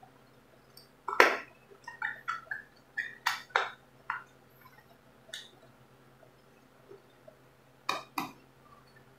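Screwdriver working screws on the metal parts of an electric iron during reassembly: irregular sharp metallic clicks and taps, a cluster in the first half, a lull, then two quick taps near the end.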